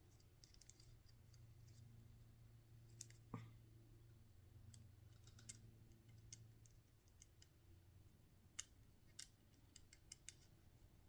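Faint scattered clicks and light taps of small metal parts and tools being handled while a nut is threaded onto a bolt on a model helicopter frame, with one louder knock about three seconds in. A low steady hum sits underneath.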